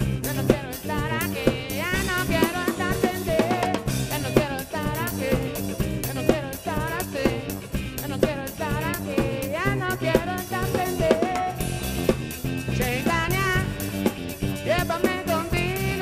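A live band playing an upbeat dance tune: a drum kit beat with snare and kick, an electric bass line, and a wavering lead melody over the top, with saxophone, trumpet, guitar and tambourine in the band.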